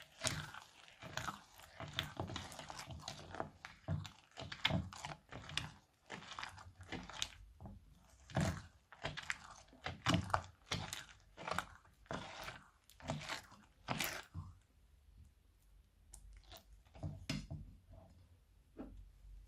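Crunchy slime being squeezed and pressed by hand, giving quick repeated crackling crunches and pops. The crunches thin out to a few scattered clicks after about fourteen seconds.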